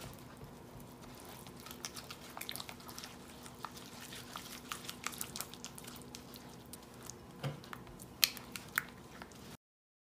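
Silicone spatula stirring raspberry purée into mascarpone in a glass bowl: soft wet squishing with many small, sharp ticks of the spatula against the glass, the loudest a little after eight seconds. The sound cuts off just before the end.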